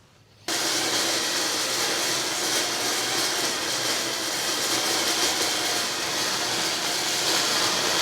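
A steady motor-driven rushing noise, like a blower or power tool running, starts abruptly about half a second in and keeps on evenly.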